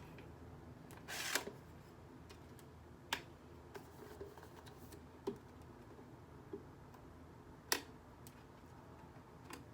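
Scattered sharp clicks and a short rustle from hands pulling on and handling the plastic parts of a lamp, with a stubborn piece being worked free.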